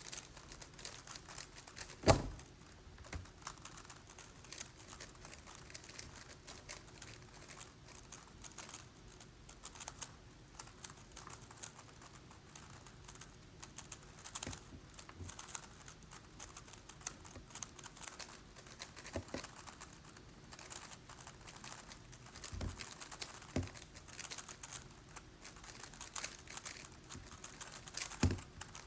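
Megaminx puzzle being turned rapidly during a speedsolve: a dense, irregular stream of plastic clicks and clacks. A sharp knock comes about two seconds in, and a few more near the end.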